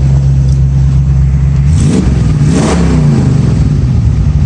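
1965 Ford Mustang engine idling steadily with its old engine-driven fan removed, revved once about two seconds in, rising and dropping back to idle.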